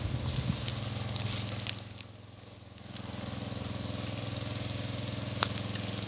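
Small engine running steadily, with crackling and a few clicks in the first two seconds; the engine dips quieter for about a second a couple of seconds in.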